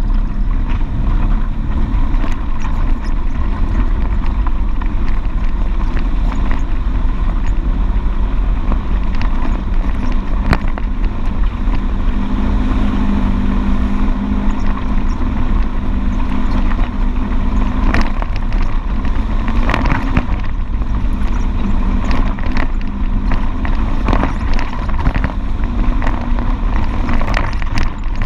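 Polaris RZR XP 1000's twin-cylinder engine running as the side-by-side drives a rough dirt trail, heard from on board. Its engine note grows stronger for a few seconds near the middle, and scattered knocks and rattles come from the machine jolting over rocks.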